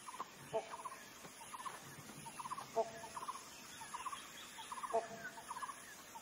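Faint wild animal calls: short rapid trills repeating several times a second, with a short, lower call about every two seconds.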